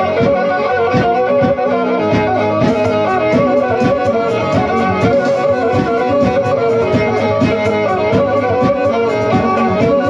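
Black Sea kemençe, the small three-stringed bowed fiddle of the Trabzon region, playing a fast instrumental folk tune for the horon over a steady, rapid beat.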